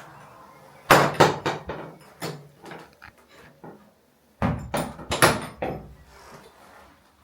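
Two clusters of sharp knocks and clunks, several hits each, about a second in and again around the middle.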